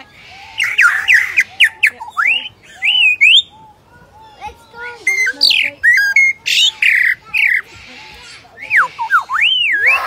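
Lyrebird singing a varied song in bouts: quick rising and falling whistles, harsh chattering notes and sharp clicks, with short lulls about four and eight seconds in.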